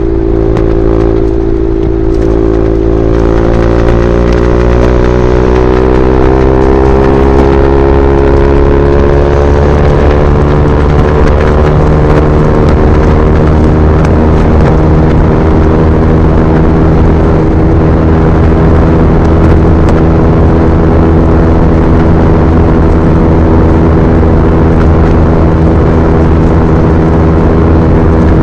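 KTM RC 390's single-cylinder engine running through an SC Project replica slip-on exhaust at highway speed. The revs climb slowly over the first several seconds, then hold steady at cruise.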